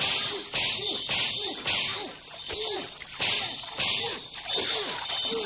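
A rapid series of weapon swishes, about two a second, from a sword and spear being swung in a staged fight, some landing with a whack.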